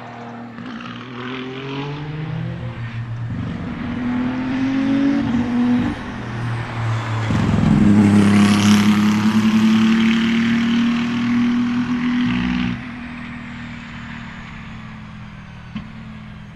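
Race car engine accelerating hard, its pitch climbing and breaking at gear changes. It is loudest around the middle, drops sharply about thirteen seconds in, and fades.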